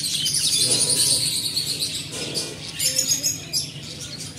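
A flock of caged budgerigars chattering and chirping all at once, a dense high twittering, busiest in the first two seconds and picking up again around three seconds in.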